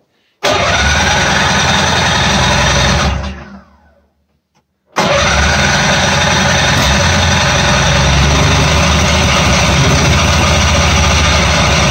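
An old 488 snowmobile's two-stroke engine fires about half a second in, runs for about three seconds, then dies away. It starts again about five seconds in and keeps running steadily.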